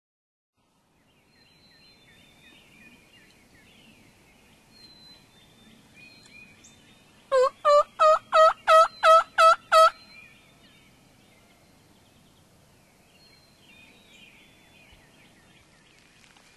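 A series of eight loud turkey yelps, about three a second, each note dropping and rising in pitch, over faint songbird chirping.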